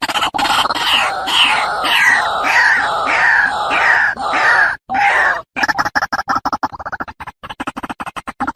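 White-breasted waterhen (ruak-ruak) calling in a loud, full-voiced bout, the kind of recording played to draw the birds in. It gives a fast run of harsh croaks, with about ten falling notes at roughly two and a half a second in the first half. After a brief break it goes back to rapid croaking.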